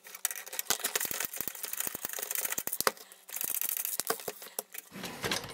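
Light metallic clicks and rattles as nuts are loosened and spun off the threaded antenna connectors on a satellite set-top box's metal back panel, with a brief scraping rush a little past halfway.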